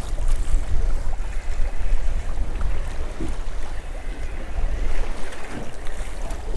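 Wind buffeting the microphone in uneven gusts with a heavy low rumble, over the wash of the sea around a small boat.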